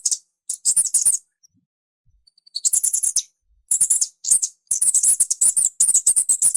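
Mouse squeaking: rapid runs of short, high-pitched squeaks. They break off about a second in and resume denser after a pause of about a second and a half.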